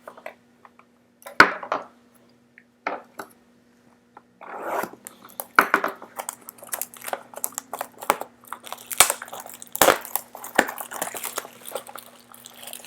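Packaging of a box of basketball trading cards crinkling and tearing as it is opened. A few separate clicks come first, then steady crackling from about four seconds in. A faint steady hum runs underneath.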